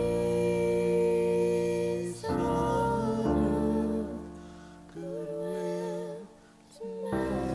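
A girl singing a slow Christmas song with piano accompaniment, in long held notes. The music fades to a brief lull about six seconds in, then starts again.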